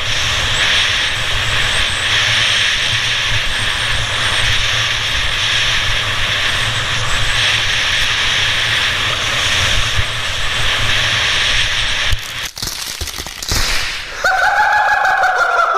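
Wind buffeting an action camera's microphone on a fast ski descent, over the steady hiss of skis sliding on groomed snow. The noise breaks up unevenly about twelve seconds in, and near the end music with a slowly falling tone comes in.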